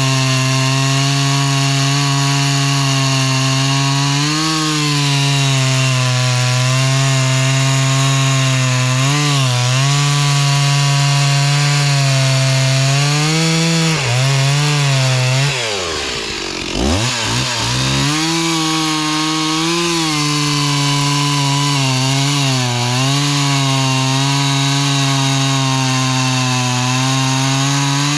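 Older two-stroke chainsaw running at high speed while cutting hemlock rounds, its pitch sagging briefly a few times as the chain loads in the wood. A little past halfway the engine speed drops steeply for about two seconds, then picks back up to full speed.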